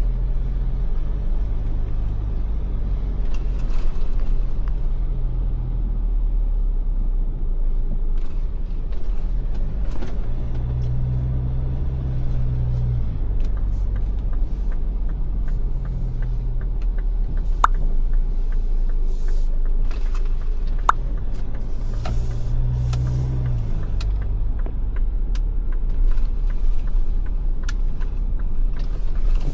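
Steady low road and engine rumble heard inside a Ford Everest SUV's cabin while driving, with a low drone that swells and fades several times and scattered light clicks and taps.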